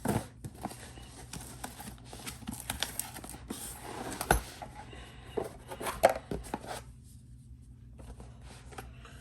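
Product packaging being opened by hand: tearing, scraping and rustling of cardboard and wrapping, with many sharp clicks and knocks. It goes quieter about two seconds before the end.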